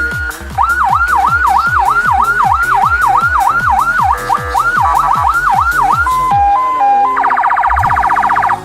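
Electronic siren from a lightbar siren set switching through its tones: a fast yelp about three times a second, then a two-note hi-lo, then a rapid pulsing warble near the end. A song with a thumping beat plays underneath.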